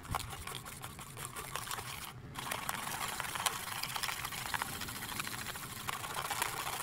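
Coil whisk beating coffee, sugar and hot water into foam in a metal bowl: a fast, continuous clicking and scraping of the wire against the bowl, with a brief pause about two seconds in.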